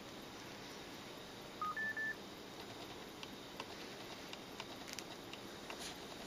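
Mobile phone keypad beeps: three short beeps about two seconds in, a lower one followed by two higher ones, as keys are pressed on a Japanese au feature phone. Faint clicks of further key presses follow.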